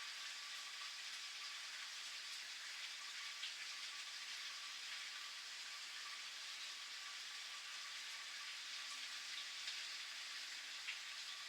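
Steady rain falling, an even hiss, with a few louder single drops landing, the clearest near the end.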